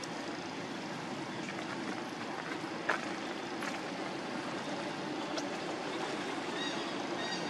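Steady outdoor background noise, a constant rumbling hiss, with one sharp click about three seconds in and a few faint high chirps near the end.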